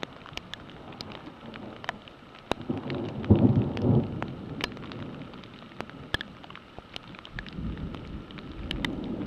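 Steady rain and sleet falling, with scattered sharp ticks of drops or pellets striking close by. A low rumble of thunder swells about three seconds in and is the loudest sound; a second, weaker rumble builds near the end.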